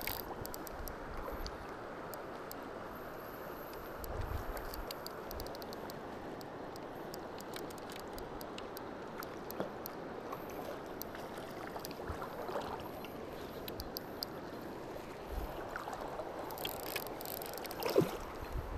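Steady rush of river water flowing and rippling, with scattered faint clicks from handling gear and a sharp knock near the end.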